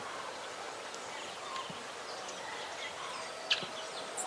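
Birds chirping in short, scattered calls over a steady hiss, with one sharp click about three and a half seconds in.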